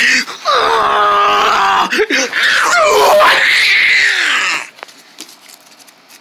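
A person's voice wailing and screaming without words, the pitch sliding up and down. It stops about four and a half seconds in, leaving only faint taps and rustling.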